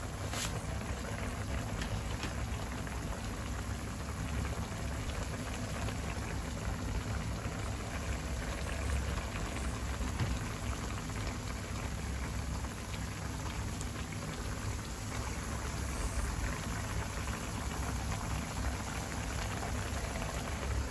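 Soy-vinegar adobo sauce simmering around chicken pieces in a nonstick frying pan: a steady bubbling and crackling. There is one light click just after the start.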